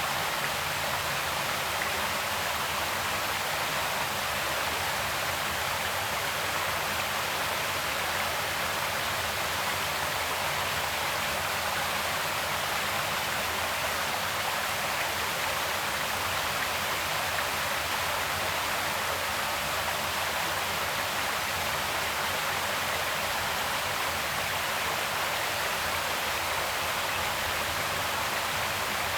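Creek water flowing, a steady, even rush.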